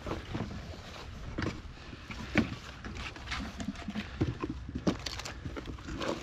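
Plastic gear-handling sounds: a bucket lifted out of a plastic bike crate and things shifted about inside it, in scattered knocks, clicks and rustles, the sharpest knock about two and a half seconds in.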